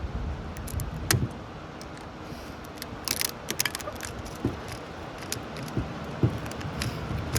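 Steel transformer laminations clinking and scraping as they are worked loose from the core, with scattered sharp metallic clicks and a quick cluster of them about three seconds in.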